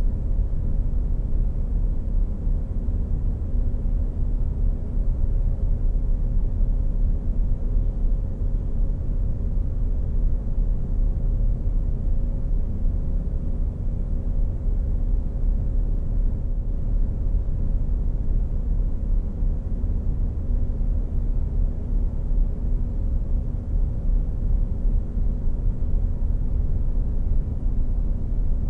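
Steady low rumble with a faint constant hum above it, unchanging throughout.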